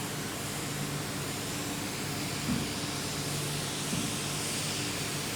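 Water mister spraying a steady hiss of fine spray over a seeded tray of cocoa-peat substrate, soaking the radish seeds.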